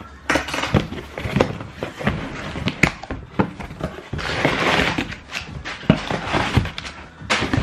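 Cardboard shipping box being handled and opened by hand: flaps and sides scraping and rustling, with irregular knocks and clicks, and a longer stretch of rustling and scraping about four seconds in.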